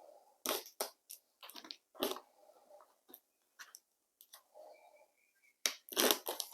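Cardboard product box being opened by hand: irregular crunching and crackling of cardboard flaps and packaging, with the sharpest crunches about half a second in, at two seconds and around six seconds.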